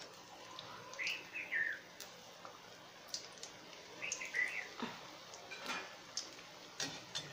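A bird chirping in short falling calls, twice about three seconds apart, over a faint sizzle of anarse frying in hot ghee. A few sharp clicks come in the latter half.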